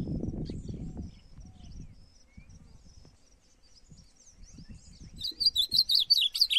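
A songbird singing: faint scattered chirps at first, then from about five seconds in a loud, fast run of high notes ending in a trill. A low rustle fades out in the first second or two.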